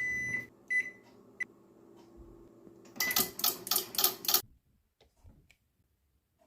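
Microwave oven keypad beeps three times and the oven starts with a steady low hum. About three seconds in, a loud rough buzzing pulses about four times a second, then everything cuts off suddenly as the oven's fuse blows. A thump comes at the very end.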